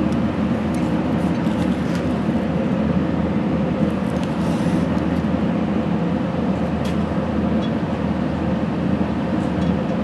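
A steady low-pitched background noise, with a few faint light clicks on top.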